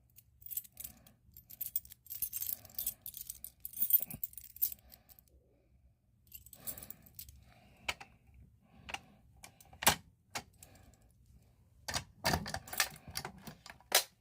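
A bunch of keys jangling and clinking as they are sorted through to find a Simplex pull-station key, with a dense clatter in the first five seconds. Several separate sharp clicks and knocks follow in the second half.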